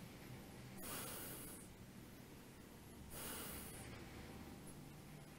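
A man's slow, audible breathing: two soft breaths a little over two seconds apart, as he holds a one-legged standing balance.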